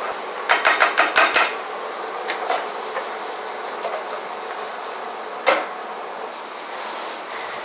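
A stirring utensil clinking against a saucepan in a quick run of about eight strikes, then a few lighter taps, over a steady sizzle of habanero peppers and onion frying in oil. One louder knock about five and a half seconds in.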